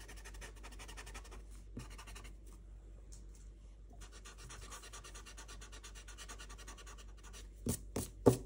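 Eraser rubbing over paper, wiping out light pencil guide lines with a faint, continuous scratchy rubbing. A few sharp taps come near the end.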